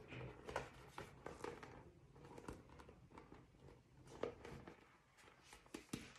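Faint, irregular crackling and clicking of a thin, clear plastic football-helmet cover shell being flexed and turned in the hands.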